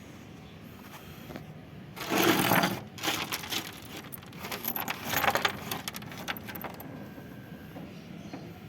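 Hard objects clattering and clinking while being handled. A loud rattle comes about two seconds in, followed by several seconds of light, rapid clinks and knocks that die away.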